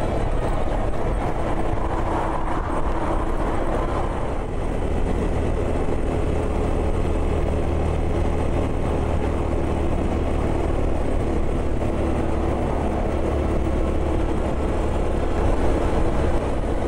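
Motorcycle engine running steadily at road speed, with wind noise.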